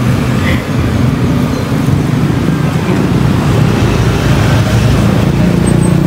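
Low, steady rumble of motor vehicle traffic, a vehicle engine running nearby and growing louder near the end.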